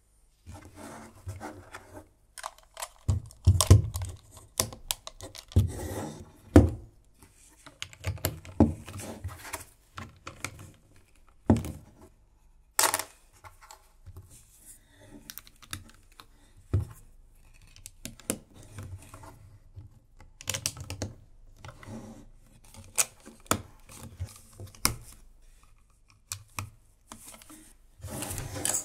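LEGO plastic bricks and Technic pieces being handled and pressed together: irregular clicks and light plastic rattling, with a few louder knocks as parts are pushed onto the model.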